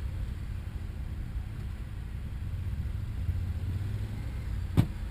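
Honda Pioneer 1000-5 side-by-side engines idling at the start line as a steady low hum, with one sharp knock near the end.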